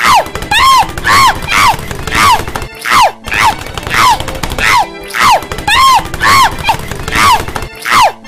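A cartoon woman's voice crying out in short yelps, each rising then falling in pitch, about two a second, as she tumbles down a flight of stairs. Dull thuds sound under the cries, and the run breaks off briefly twice where the loop restarts.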